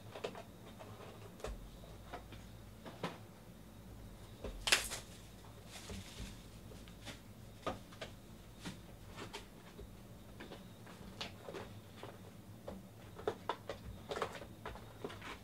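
Hands handling shrink-wrapped cardboard trading-card boxes: scattered light taps and knocks as boxes are moved and set down, with plastic wrap crinkling. A sharp crackle of plastic comes about five seconds in, and a burst of quick knocks comes near the end.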